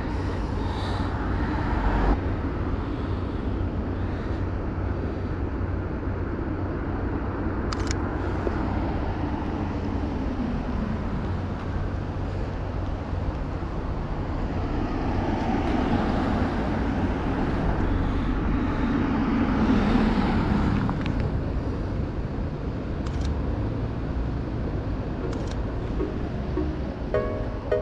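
Road traffic on a city street: a steady rumble of tyre and engine noise as cars and buses pass, swelling with a pass about ten seconds in and a longer, louder one from about fifteen to twenty-one seconds in, with a few faint clicks.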